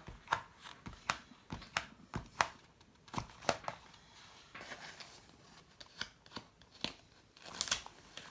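Irregular sharp clicks and crinkles, roughly one or two a second with soft rustles between them, as a large canvas and its plastic cover film are handled.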